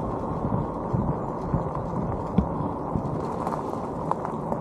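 Tyres of a mobility scooter rolling over a gravel road: a steady rumble and crunch, with irregular small knocks as the wheels jolt over stones.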